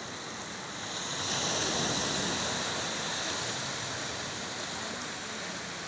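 Small surf breaking and washing up a sandy beach; one wash swells about a second in, then slowly fades.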